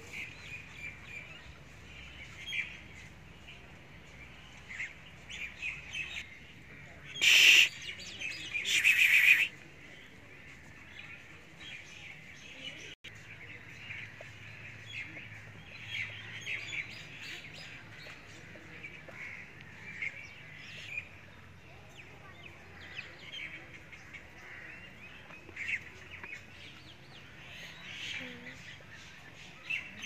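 Birds chirping and calling in many short notes. Twice, a little after a quarter of the way in, there is a loud sound of about a second, the second following close after the first; these are the loudest sounds here.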